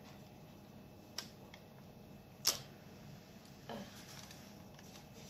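A few light taps and clicks, the sharpest about two and a half seconds in: a plastic fluted cookie cutter being worked out of sablé dough and set down on parchment paper.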